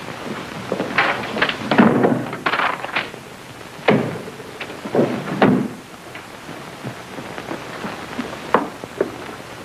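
Several dull thumps and knocks over a steady hiss, most of them in the first half, with a few lighter clicks near the end.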